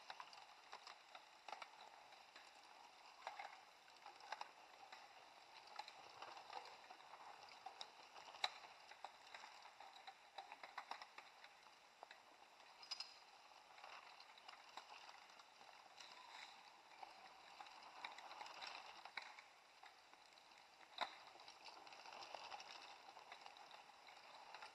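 Faint sound of mountain bikes riding past on a dirt forest trail: a steady rustle of tyres on dirt, with scattered sharp clicks and rattles from the bikes.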